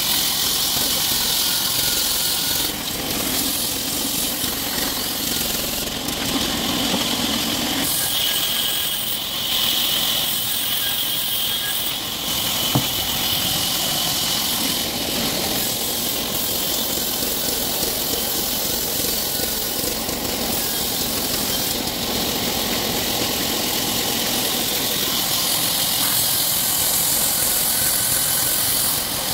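Large vertical band saw running steadily while a log is pushed along the table into the blade, with a steady high hiss. One sharp knock about halfway through.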